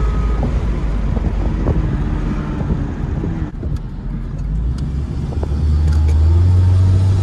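Car engine and road rumble heard from inside a moving car, a low steady drone that climbs in pitch and gets louder about two-thirds of the way through as the car accelerates.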